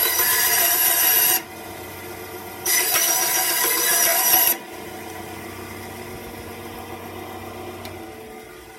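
Bandsaw running and cutting wood, its drive belt freshly re-adjusted: two loud cuts, the first ending just over a second in and the second from about 3 to 4.5 seconds, with the motor and blade running steadily between and after. The saw starts to wind down near the end.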